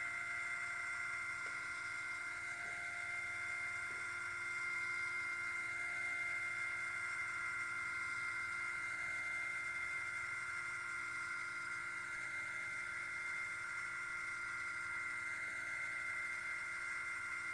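Small electric winch motor of a CH1K-SAFE automatic chicken coop door controller running with a steady whine, unchanging in pitch, as it pays out string and lowers the sliding door while the down button is held to set the closed position.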